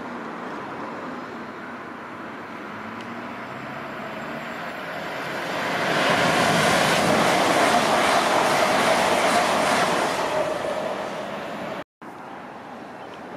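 Two coupled Class 387 Electrostar electric multiple units running fast through the station: a rushing rail and air noise that builds up, is loudest for about four seconds, then fades. It breaks off abruptly about twelve seconds in, giving way to a quieter steady background.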